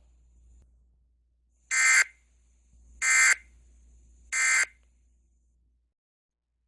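Three short, identical bursts of Emergency Alert System SAME data tones, buzzy digital chirps each about a third of a second long and spaced about 1.3 s apart. This is the end-of-message signal that closes an EAS alert.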